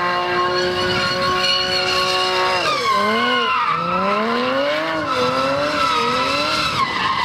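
Porsche Cayman GT4's 3.8-litre flat-six held at high revs through a smoky donut, rear tyres spinning and squealing on the tarmac. About three seconds in, the revs dip and rise several times, then drop off near the end.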